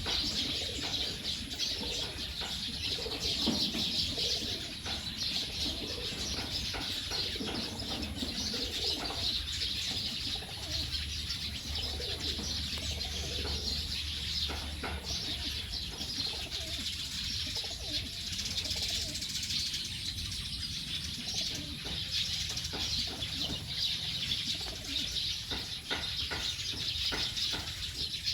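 A dense, continuous chorus of many birds chirping together as a flock settles to roost for the night.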